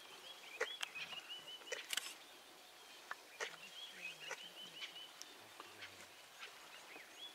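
A male lion feeding on a young Cape buffalo carcass: scattered sharp cracks and crunches of chewing and tearing. Behind them a bird calls in runs of short, high chirping notes.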